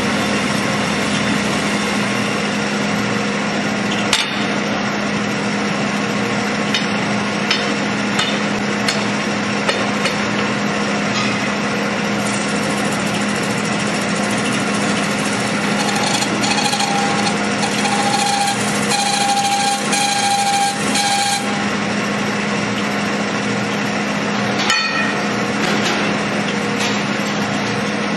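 A metal-spinning lathe running steadily with a low hum while a hand lever tool presses on the spinning sheet-metal dome. A few sharp knocks, and about halfway through a high squeal that comes and goes for several seconds as the tool rubs on the metal.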